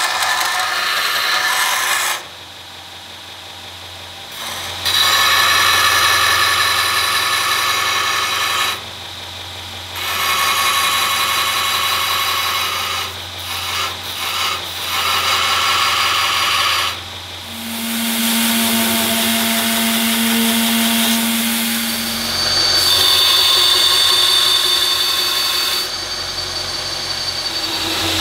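Belt grinder running while a damascus steel blade is pressed against the abrasive belt in passes: a loud grinding hiss over the motor's steady hum, dropping away in short gaps between passes. In the second half the machine's tone changes to a steadier, higher drone.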